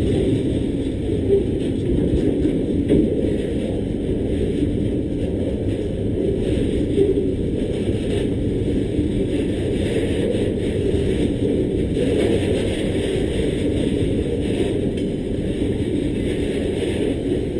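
Freight train wagons rolling past on a narrow-gauge line: a steady low rumble of steel wheels on the rails, with no let-up as the container wagons go by.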